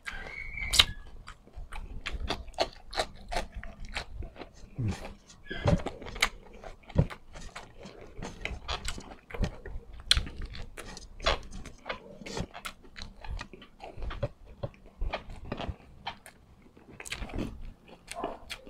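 Close-miked chewing as a man eats okra dipped in soy-calamansi dipping sauce: many short, irregular wet clicks and crunches from the mouth.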